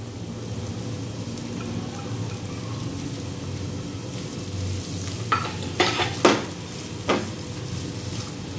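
Chopped onions frying in hot oil in a nonstick kadhai with a steady sizzle while a spatula stirs them. A little past halfway, the spatula scrapes and taps sharply against the pan four or five times.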